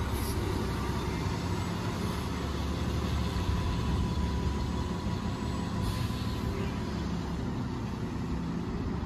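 A bus engine running steadily with a low rumble, with two short high hisses, one just after the start and one about six seconds in.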